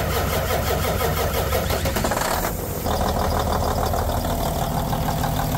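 Semi truck's diesel engine idling steadily, with a brief change in tone about two and a half seconds in.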